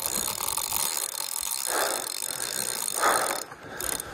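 Fishing reel ratcheting and clicking as a hooked king (Chinook) salmon is played, with two brief louder bursts about two and three seconds in.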